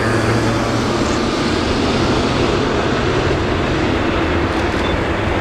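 Boeing 777-300ER's GE90-115B turbofan engines running at low thrust as the airliner taxis, a steady jet noise with a low hum that fades about four seconds in.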